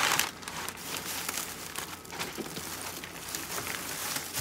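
Plastic wrapping crinkling and rustling in irregular crackles as it is pulled off a packed LED grow light, loudest right at the start.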